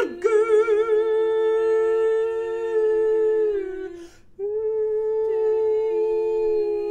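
Two women's voices in an a cappella duet, holding long notes: the higher voice sings with vibrato at first, then steadies, while the lower voice holds a steady note with closed lips, hummed. Both break off for a moment about four seconds in, then resume with held notes.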